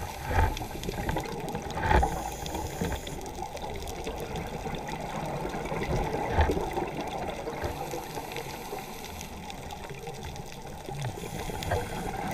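Underwater sound on a scuba dive: the steady rush and gurgle of water and the diver's exhaled regulator bubbles, with louder swells about half a second, two seconds and six seconds in.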